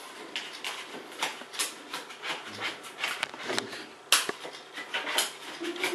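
An irregular series of sharp clicks and taps, a few a second, with one louder knock about four seconds in.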